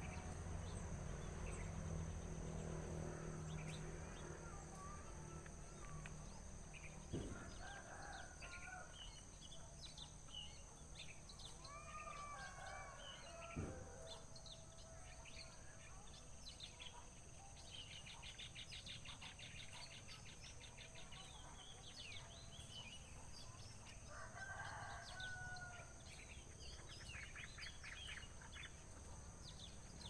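Outdoor bird calls: scattered short chirps and two fast trills from surrounding birds, with a faint rooster crowing twice, a little before the middle and again about four-fifths of the way in. A steady high insect drone runs underneath, and there are two low thumps, about a quarter of the way in and near the middle.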